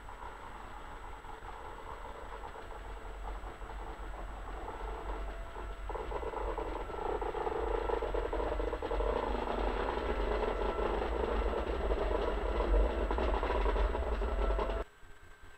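ZSSK class 363 electric locomotive running light past at close range, its running noise growing louder as it approaches and passes, then cutting off suddenly near the end.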